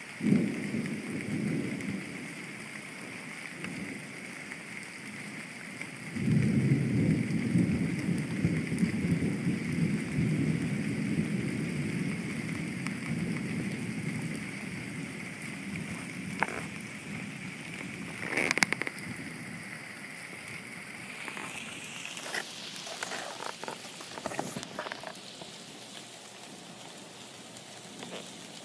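Heavy rain falling steadily during a thunderstorm. A sharp thunder crack at the start is followed by a short rumble, and a long low thunder rumble begins about six seconds in and slowly fades. A few sharp taps come later in the rain.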